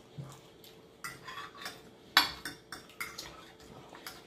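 Metal forks tapping and scraping on glass plates during a meal: a string of short clinks, the sharpest a little over two seconds in.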